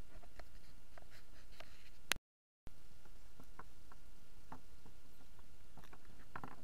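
Faint scattered clicks and plastic crinkles from hands handling a clear plastic pouch, a homemade waterproof phone case, over a steady background hiss. About two seconds in, a sharp click is followed by half a second of dead silence where the audio cuts out.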